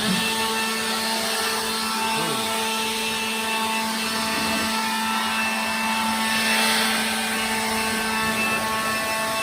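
Air blowing the sanding dust off a car body, a steady hiss over a constant motor hum; the hiss swells about two-thirds of the way through.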